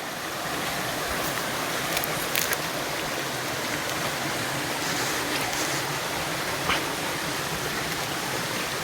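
Steady rushing of a river stream, with a few faint clicks.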